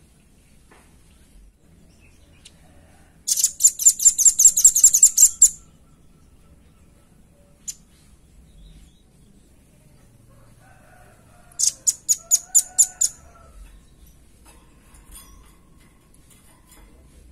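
Velvet-fronted nuthatch calling: a fast run of about a dozen sharp, high-pitched notes lasting about two seconds, then, some six seconds later, a shorter run of about eight notes.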